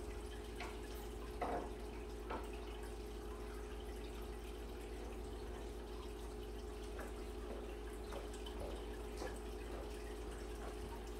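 Faint, scattered pops and ticks from oil heating in a frying pan on a gas burner, over a steady low hum.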